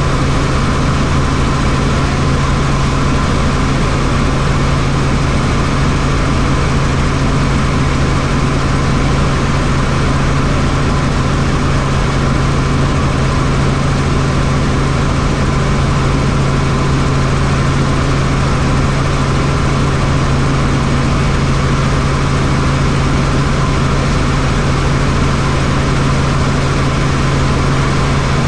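Helicopter engine and rotors running with a loud, unchanging drone: a strong low hum with a fainter higher whine above it.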